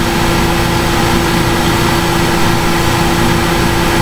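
Steady, loud electronic hum and hiss with one constant droning tone, the noise picked up by a computer's built-in microphone, which the uploader calls a ton of feedback.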